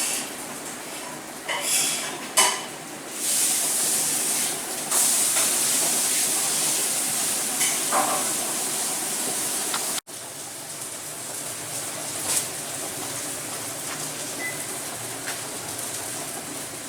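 Steady hissing of cooking in a takeaway kitchen, with a few clatters of pans or utensils in the first couple of seconds. The sound cuts off sharply about ten seconds in, and a quieter steady hiss carries on.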